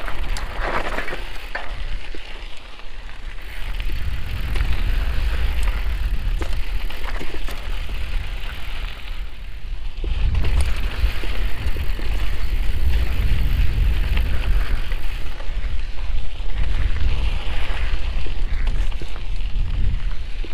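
Mountain bike riding along a dirt trail: tyres crunching over loose dirt and gravel, with scattered rattles and clicks from the bike and a heavy low rumble. The noise eases briefly and grows louder again about ten seconds in.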